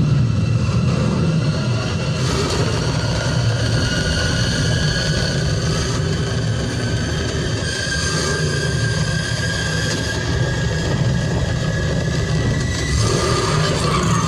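Batmobile engine sound: a heavy, continuous rumble with whining tones above it that slowly rise in pitch partway through.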